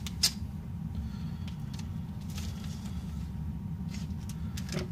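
Trading card packs being handled and opened: one sharp click just after the start, then a few faint clicks and rustles, over a steady low hum.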